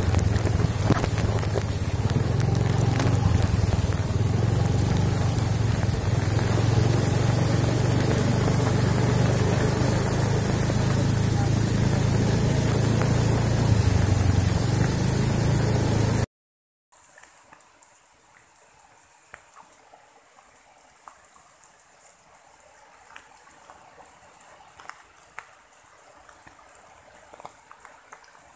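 Heavy monsoon rain and rushing floodwater: a loud, steady rushing noise with a deep rumble underneath. It cuts off suddenly about sixteen seconds in. After a short break it gives way to a much fainter steady wash with scattered light ticks.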